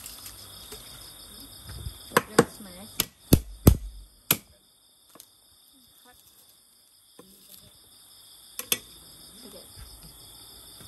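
Cleaver chopping on a chopping block: about six sharp knocks between two and four and a half seconds in, and one more near nine seconds. Night insects chirr steadily underneath.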